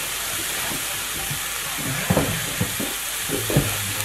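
Cauliflower rice frying in a skillet, with a steady sizzle and a few dull knocks in the second half.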